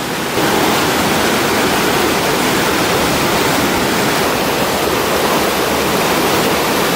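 Waterfall water rushing, a steady, full hiss that grows louder shortly after the start and then holds even.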